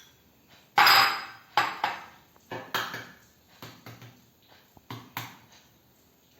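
An egg being tapped against a bowl to crack it: a run of short, sharp knocks and clinks, the first about a second in the loudest.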